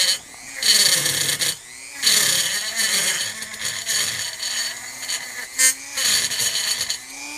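Dremel rotary tool with a wire wheel running inside an aluminium airsoft gearbox shell, scrubbing old glue residue out of the wire channel. A steady motor whine runs under repeated short bursts of high-pitched scraping as the wheel is pressed against the metal and eased off again.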